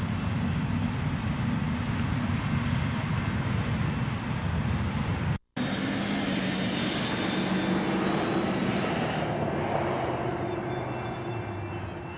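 Diesel locomotives running as a train passes, a steady engine drone. The sound cuts out for an instant about five seconds in, then comes back as a steadier hum with a hiss that fades away.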